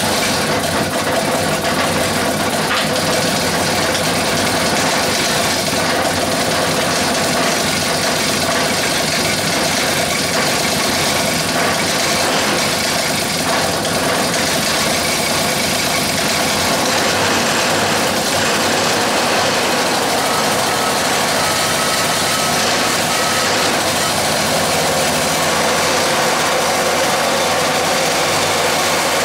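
Small homemade single-cylinder air-cooled gas engine running steadily. Its carburetor's idle mixture is being dialed in.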